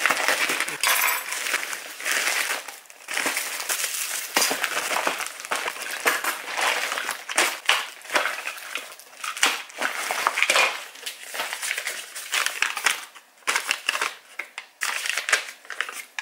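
White plastic mailer bag being slit with a cutter and torn open, then crinkled and rustled as the contents and their wrapping are pulled out, with continuous irregular crackling.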